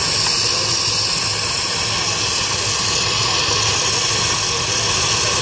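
Quarter-scale Case steam traction engine worked hard, its exhaust up the stack a steady, loud rushing hiss, the hard draft that throws the sparks out of the stack.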